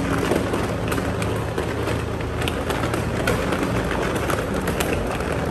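Loaded shopping trolley rolling over a concrete garage floor, its wheels and basket rattling steadily, over a low steady hum.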